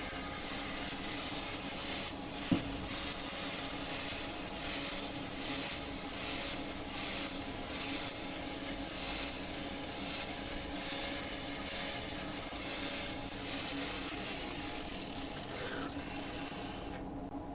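Angle grinder with an 80-grit flap disc working the steel jaws of a post vise: a steady motor tone under a scraping hiss that swells and fades in regular strokes as the disc is swept back and forth, with one sharp knock about two seconds in. The scraping stops shortly before the end.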